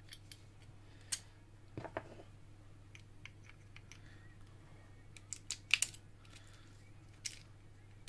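Small metal parts of an antique Kromer Protector wafer lock clicking and tapping as they are fitted into the lock body with a thin metal tool, during reassembly. Scattered light clicks, a softer knock about two seconds in, and a quick cluster of sharper clicks near six seconds, over a faint steady low hum.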